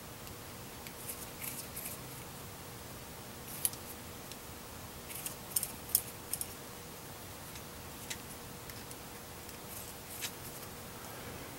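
Light metallic clicks and scrapes of thin threaded metal radial rods being screwed into a PL-259 quarter-wave antenna base and knocking against it, about a dozen short ticks spread unevenly.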